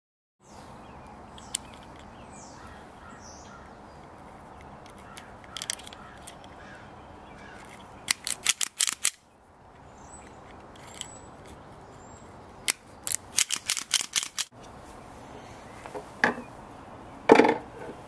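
Wire strippers clicking and snipping in several quick bursts as they bite into and pull the insulation off thin doorbell wires, over a steady low hiss, with a single louder knock near the end.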